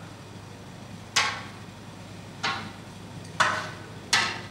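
Metal striking metal during a prison food round: four sharp clangs, each ringing briefly, the last two close together.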